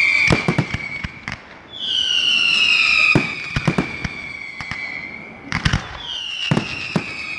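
Fireworks display with long whistles that slide slightly down in pitch from whistling shells, heard three times. Between the whistles come clusters of sharp bangs from bursting shells, about half a second in, around three seconds in and just before six seconds.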